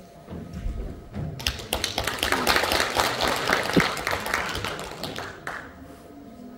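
Audience applauding, beginning about a second and a half in and dying away about a second before the end.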